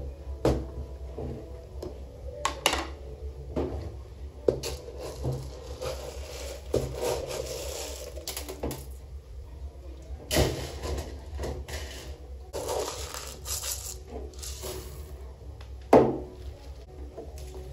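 Kitchen clatter while cooking: pots, dishes and utensils knocking and scraping in irregular clicks and clanks, with a sharp knock about 16 seconds in.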